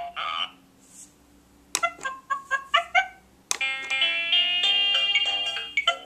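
A baby's toy laptop playing electronic sounds through its small speaker: after a short pause, a quick run of chirpy electronic notes, then a button click about three and a half seconds in, followed by a tinny electronic melody.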